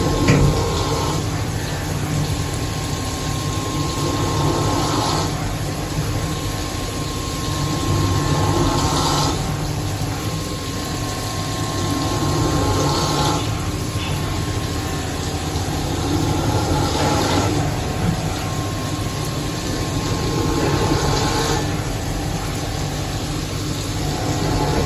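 CNC machine cutting a round plate: a steady machine drone with a thin constant tone, and a harsher, brighter scraping swell that comes back about every four seconds as the cut goes round.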